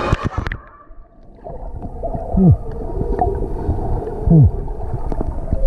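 Sound heard underwater in a swimming pool through a submerged action camera: a splash as it goes under about half a second in, then muffled, low churning water with two short falling low tones partway through.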